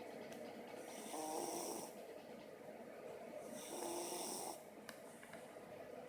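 Snoring in slow, regular breaths, two of them about two and a half seconds apart, each with a raspy rattle and a high whistling tone on top.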